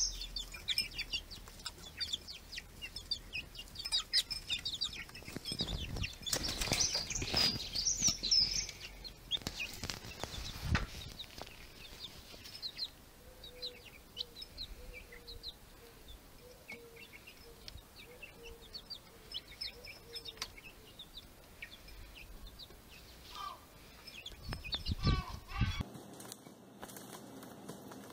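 Baby chicks peeping: many quick, high cheeps throughout, with a few louder bursts of wing flapping about a third of the way in.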